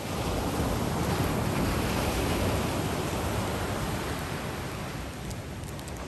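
Small ocean waves breaking and washing up a sandy beach. The surf swells about half a second in and eases off toward the end.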